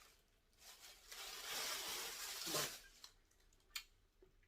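A banana being peeled: a soft tearing rustle lasting about two seconds, then a few light clicks.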